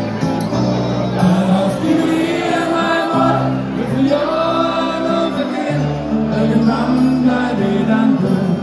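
Live party band music with singing over long held bass notes.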